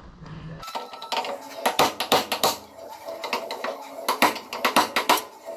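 Two quick runs of hammer blows on metal, each strike ringing sharply: hammer and chisel knocking at the rivets that hold the truck cab's steel firewall.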